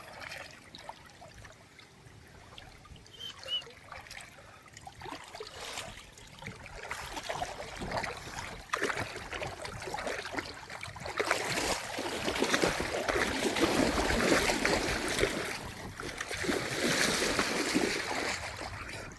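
Water splashing and trickling: faint at first with scattered small drips, then a dense, busy splashing that builds and stays loud through the second half before easing off.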